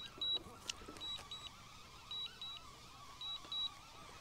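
DJI RC-N3 remote controller sounding its return-to-home alert: short high double beeps repeating about once a second while the DJI Neo flies itself home. A faint wavering high hum runs underneath.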